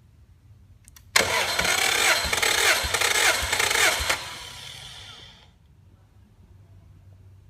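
Subaru EJ20 turbo flat-four engine cranked over for about three seconds, starting abruptly, then winding down and fading out.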